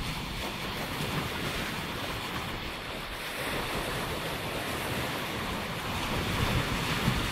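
Small sea waves breaking and washing over a shore of large rounded stones, a steady surf wash, with wind buffeting the microphone in a low rumble.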